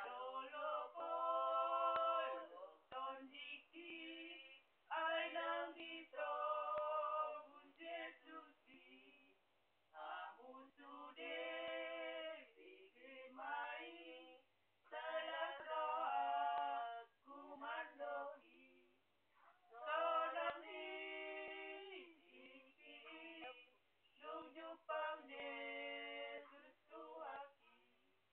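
A few women singing a Batak church hymn unaccompanied, in phrases of a few seconds with short breaks between them.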